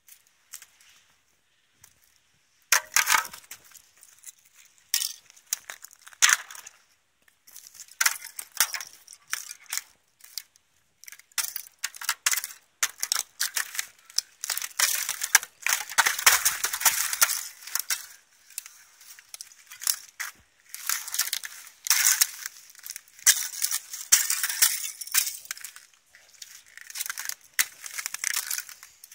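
Thin sheet ice over a puddle cracking and crunching under rubber boots, in irregular bursts of crisp, high crackling as the ice shatters into shards. The breaking starts about three seconds in.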